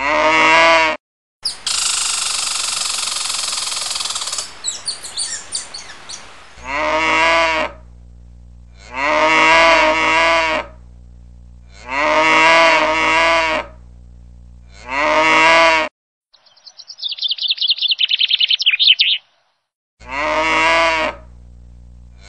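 A cow mooing again and again, each moo about a second long and coming every two to three seconds, the calls nearly identical. A few seconds of rushing noise come about a second and a half in, and a fast run of high chirps comes near the end.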